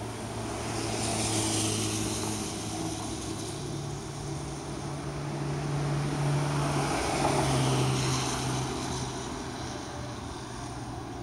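A steady low engine drone that swells louder and fades twice, about a second and a half in and again around seven to eight seconds in, its hum shifting slightly in pitch.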